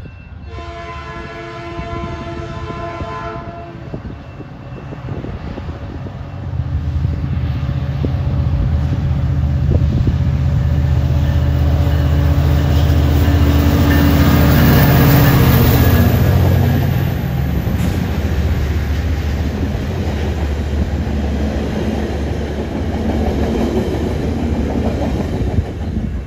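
Metrolink EMD F59PH diesel locomotive sounding its multi-chime horn in one blast of about three seconds on approach, then its diesel engine swelling loudly as it passes close by, loudest about halfway through. The bi-level coaches then roll past with wheels clacking over the rail joints.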